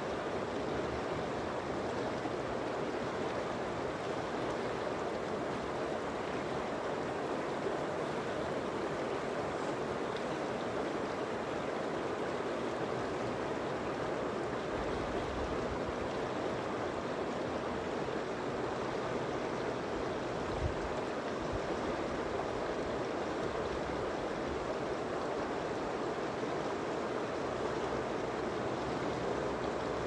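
Shallow river running over and around rocks: a steady, even rush of flowing water.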